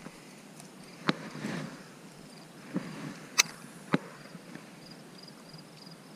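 Baitcasting rod and reel being handled and cast: a few sharp clicks, the loudest about three and a half seconds in, and a faint swish about a second and a half in.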